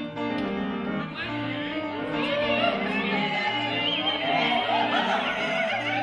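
Recorded classical-style music: sustained instrumental chords over a bass note repeating about once a second, with operatic singing in wide vibrato coming in about two seconds in.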